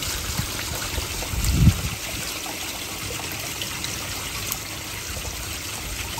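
Water pouring from a pond return outlet into a koi pond, a steady splashing trickle. About one and a half seconds in there is a brief, louder low sound.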